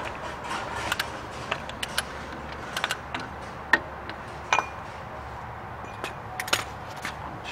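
Scattered sharp metallic clicks and clinks of a large socket and wrench working the front spindle nut on a Toyota Land Cruiser 100-series hub, backing the nut off during the wheel bearing preload adjustment. The clicks come at uneven gaps, the loudest a little under four seconds in and again about a second later.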